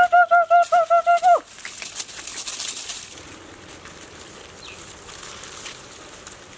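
A bird calls in a fast, even series of high notes for about a second and a half. A soft rustling follows.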